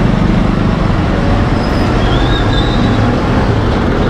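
Concrete mixer truck's diesel engine running right alongside, a loud, steady low rumble mixed with street traffic noise. A faint high wavering squeal comes in about two seconds in.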